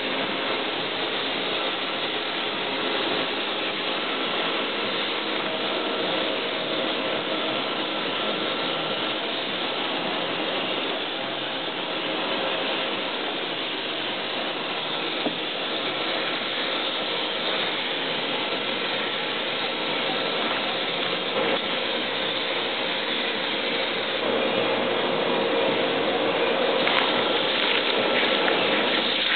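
Steady mechanical running noise of paint-shop machinery, a constant drone with hiss, growing a little louder and with a few clicks near the end.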